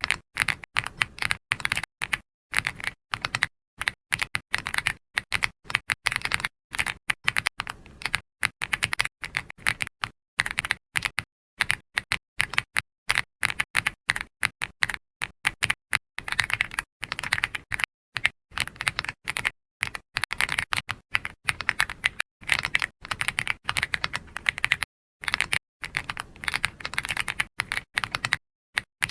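Computer keyboard being typed on in continuous runs of keystrokes, with brief pauses between runs.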